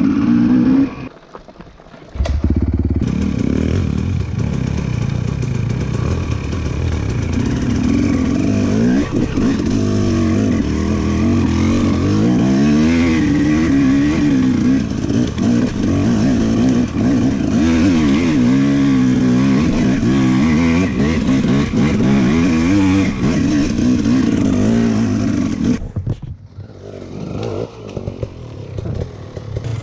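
Dirt bike engine revving hard, its pitch rising and falling over and over as the throttle opens and closes. It breaks off briefly about a second in and falls away a few seconds before the end.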